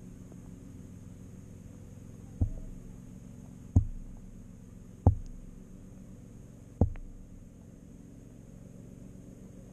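Steady low hum heard through an underwater camera housing, with four dull knocks spaced a second or so apart in the middle of the stretch.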